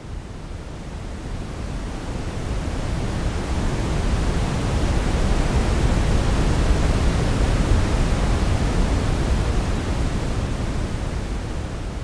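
Simulated ocean waves: a smooth, even rushing hiss, heavy in the low end, that swells up to a peak about halfway through and then ebbs away, like one slow wave rolling in and drawing back.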